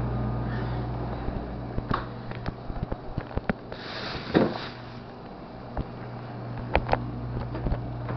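Food containers and jars knocking and clattering as they are taken out of a fridge and handled, with a louder rustling clatter about four seconds in. A steady low hum runs underneath.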